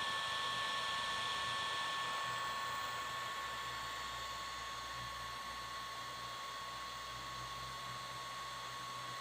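Internal cooling fan of a DJI Phantom 4 Pro V2 drone running with a steady airy whine, its sound normal again after the dead fan was repaired. It gets a little quieter about three seconds in.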